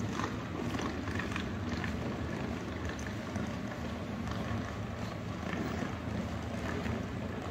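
Steady low rumble of outdoor city ambience, with a few faint light taps scattered through it.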